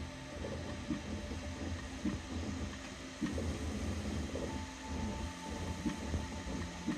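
3D printer running a print: its stepper motors hum and whine in short notes that keep changing pitch as the print head and bed move, over a low rumble.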